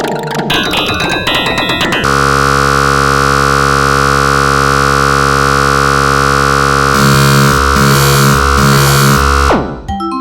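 Synthesized MIDI ringtone music. After a busy opening passage, a dense wall of many held notes sounds at once across the whole range for about seven seconds, with a low pulsing figure joining near the end. It then cuts off, and sparse short notes follow.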